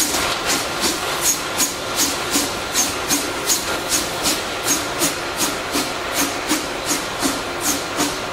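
Exhaust beats of the ex-JZ 25-30 0-6-0 narrow-gauge steam locomotive moving slowly with tipper wagons: an even rhythm of sharp chuffs, about three a second, with a steady hiss of steam.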